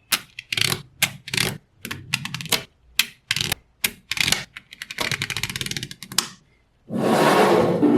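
Small magnetic balls clicking and clattering as they snap together, in short bursts and one longer rattling run of rapid clicks. Near the end a louder, steady rushing noise starts.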